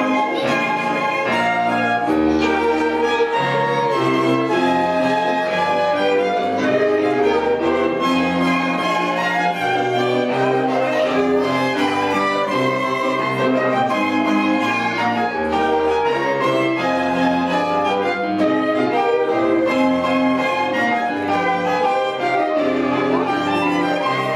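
Live string quintet of violins and cello playing a melodic piece, with bowed notes held and moving in continuous phrases over a low bass line.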